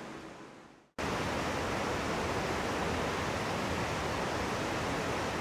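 Background noise fades out over the first second, then a steady, even rush of flowing water starts abruptly and holds unchanged.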